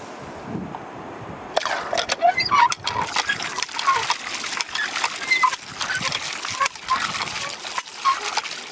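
Cast-iron hand pump being worked by its lever, water gushing from the spout and splashing onto the ground from about a second and a half in. Many sharp clicks and short squeaks come with the pumping strokes.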